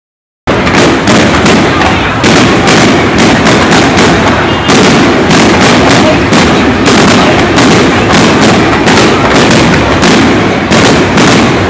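Fireworks display going off in a dense, unbroken barrage of loud bangs, several a second, over a steady rumble, starting about half a second in.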